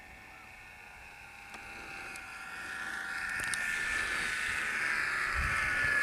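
Electric motor and propeller of a small 3D-printed Bf109 RC plane whining through the landing, growing louder from about two seconds in with the pitch sagging slightly. The ESC has no brake, so the prop keeps spinning on touchdown, which the pilot takes to have broken it. A low thump comes near the end.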